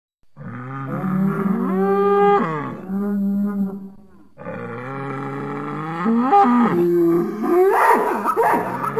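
Bull mooing in two long drawn-out calls: the first steps up in pitch midway and falls back, and the second starts after a short break about four seconds in and runs on, growing rougher near the end.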